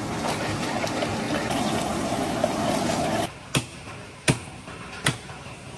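Water running steadily, cutting off abruptly about three seconds in; then three sharp knocks, less than a second apart.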